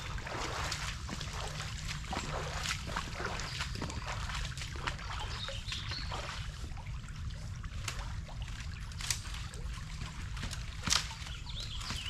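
Creek water trickling steadily, with scattered clicks and snaps of someone moving through streamside brush and a few faint bird chirps.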